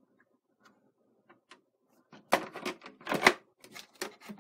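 Plastic outer shell of a Synology DS216 NAS being slid back onto its chassis: a few light clicks, then a quick clatter of plastic knocks and scrapes starting about two seconds in, loudest near three seconds.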